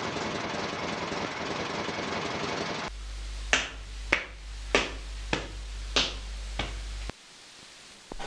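A dense, rough rumbling noise for about three seconds, then it cuts to a low hum with six sharp snaps, one a little over every half second.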